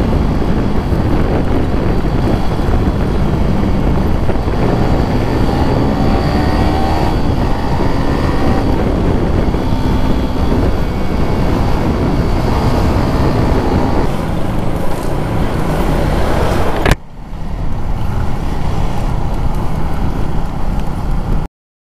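Motorcycle riding sound heard from the rider's camera: the engine runs under heavy wind rush, and its pitch rises as the bike speeds up several seconds in. About three-quarters of the way through, the sound cuts abruptly to a quieter stretch, then drops out to silence just before the end.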